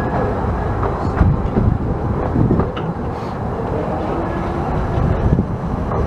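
15-inch-gauge steam train running along the line, with a few sharp clicks from the wheels and heavy wind buffeting the microphone.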